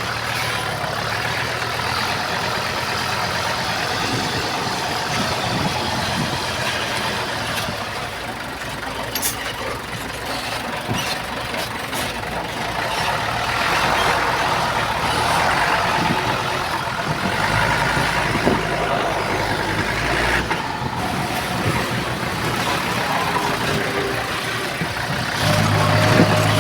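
Diesel engines of heavy earthmoving machines, a bulldozer and dump trucks, running steadily, with a few sharp knocks. A louder, steady low engine drone comes in near the end.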